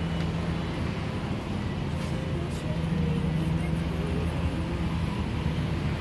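Steady road traffic noise with a low engine hum from passing vehicles.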